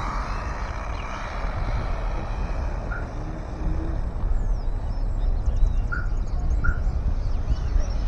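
Steady rumble and wind noise from a camera riding on an RC race car as it drives over an asphalt track, with no clear engine note, and faint high chirps partway through.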